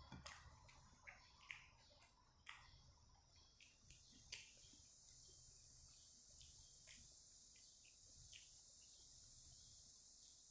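Near silence: faint clicks and smacks of someone chewing and eating by hand, most of them in the first half, over a faint steady high-pitched hiss.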